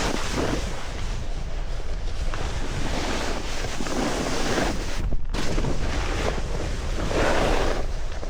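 Wind buffeting the microphone of a snowboarder riding downhill, with the snowboard's edge scraping over snow in swells during turns.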